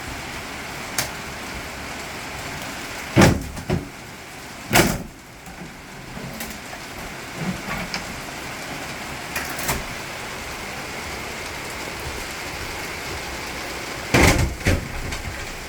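Steady rain falling, with a few loud knocks and bangs: a cluster about three to five seconds in, a lighter pair near the middle, and two more near the end.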